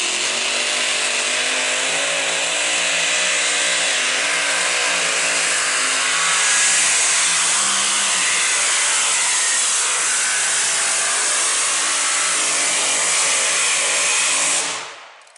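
Modified tractor-pulling vehicle's engine running flat out under full load as it drags the weight sled down the track: a loud, steady drone that wavers slightly in pitch. It cuts off suddenly near the end.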